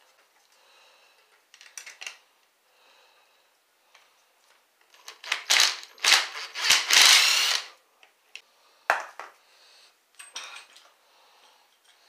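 Cordless impact driver running on the bolts that hold a 36-tooth sprocket to a bicycle wheel hub. There is a short burst about five seconds in, then a longer run of about two seconds and a brief one near nine seconds. Light metal clinks come between the bursts as the sprocket and bolts are handled.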